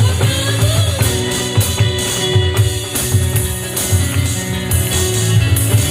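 Worship band playing an instrumental passage: drum kit and bass keeping a steady beat, with guitar and tambourine over it.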